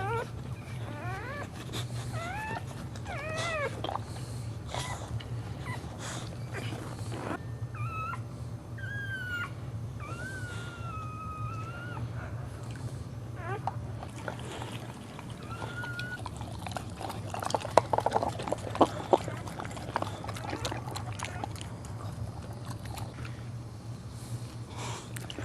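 Dog whining: a run of short, high whines that bend up and down, then a few longer drawn-out whines. A steady low hum runs underneath, and a cluster of sharp clicks comes about two-thirds of the way in.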